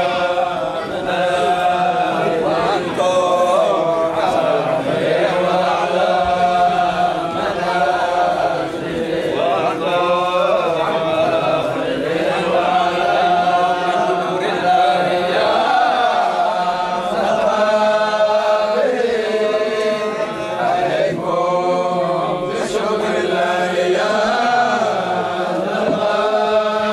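A group of men chanting Sufi dhikr together in a standing hadrah, their voices blending into one continuous chant.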